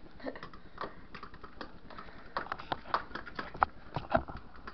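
A fork clicking and tapping against a plastic container as it whisks egg batter, in quick irregular taps, with a few sharper knocks in the second half.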